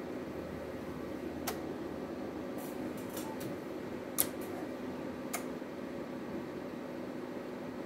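Steady hum of the linear amplifier's air-cooling fan, with three sharp clicks about a second and a half, four and five seconds in, the loudest around four seconds, from front-panel buttons and switching relays as the band is changed and the amplifier keyed.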